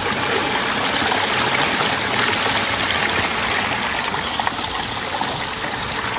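Small stream running in a little cascade over mossy rocks: a steady trickling, splashing water sound.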